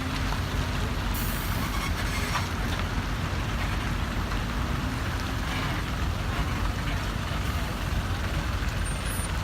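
Heavy trucks running with a steady low rumble, with a brief hiss about a second in.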